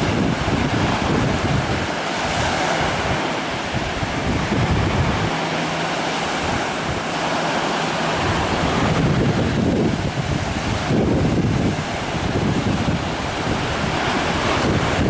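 Small waves breaking and washing up a sandy shore, a continuous surf hiss, with wind buffeting the microphone in uneven low rumbles.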